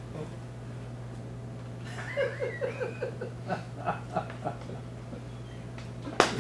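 Audience laughter: a quick run of short 'ha' pulses about two seconds in, then a few scattered chuckles, over a steady low hum. A sharp click near the end.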